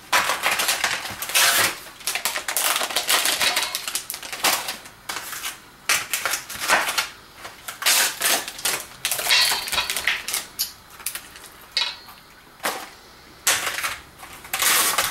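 Irregular clinks, knocks and clatter of a bowl and utensil as raw chicken breasts are put into a seasoned egg wash and turned in it.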